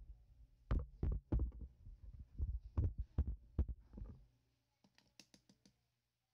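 Knocks and rubbing as a home-made PVC pipe lever mousetrap is handled and tilted close to the microphone, about eight sharp thumps in the first four seconds. Then a quick run of faint light clicks about five seconds in.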